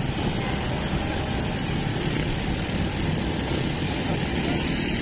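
Steady rush of wind on the microphone mixed with road and traffic noise while riding along a street.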